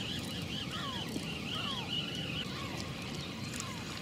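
Outdoor river-bank ambience: a steady low rush of wind and water, with birds calling over it, a wavering high trill for the first two seconds or so and short falling whistles about once a second.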